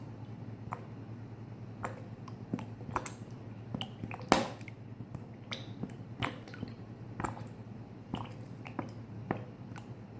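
Irregular small clicks and taps of containers and utensils being handled while oils are measured out, one sharper knock about four seconds in, over a steady low hum.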